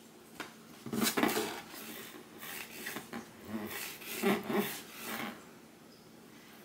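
A cat scuffling and scratching inside a cardboard box house, batting at a wand toy poked through the hole in its roof, in scattered bursts of scraping and rubbing on cardboard.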